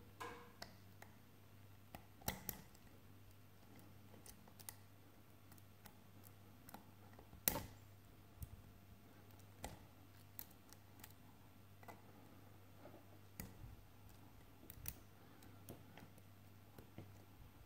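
Lock pick and tension wrench working the pins of an Avocet ABS euro cylinder lock: scattered faint metallic clicks and ticks, with one sharper click about seven and a half seconds in.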